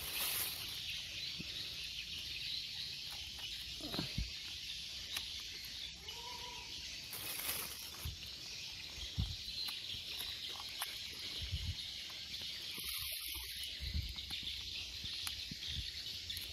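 Steady high-pitched drone of forest insects, with a few soft thumps from handling or footsteps.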